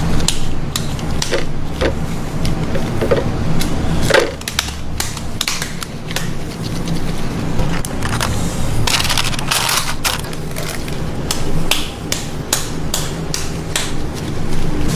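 Kitchen food-prep sounds: many short clicks and knocks from handling ground patty meat and dishes, with a longer rustling, squishing burst partway through, over a steady low hum.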